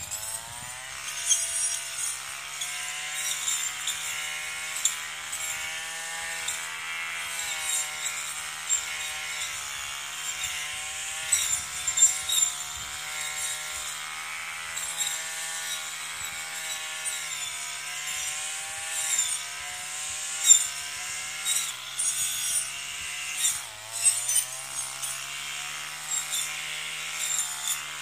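Brush cutter engine running at cutting speed, its pitch rising and dipping as the blade works through weeds, with frequent sharp cracks and ticks of the blade striking stems.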